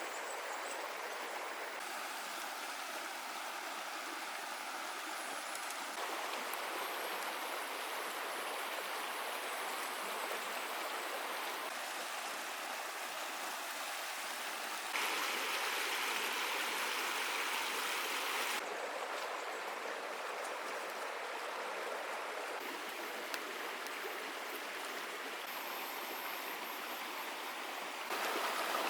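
Flowing stream: a steady rush of running water, its tone shifting abruptly a few times.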